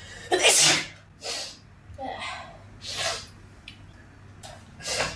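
A person sneezing once, loud and sudden, just after the start, followed by several softer, short breathy sounds.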